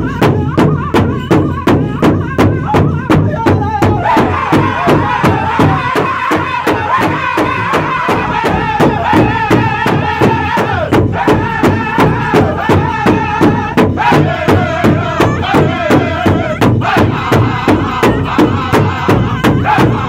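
Powwow drum group singing together over a large rawhide drum that all the drummers strike in unison, in a steady beat of about three strokes a second. The high singing grows stronger about four seconds in.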